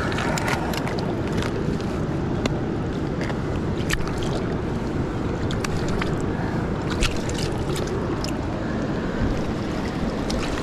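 Steady wind rumble on the microphone over moving river water, with scattered small clicks and knocks.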